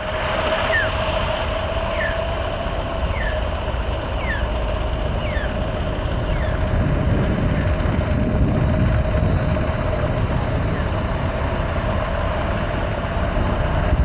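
Motorcycle engine running at a steady pace with road and wind noise on the microphone. A run of short, high, falling chirps repeats about once a second in the first half.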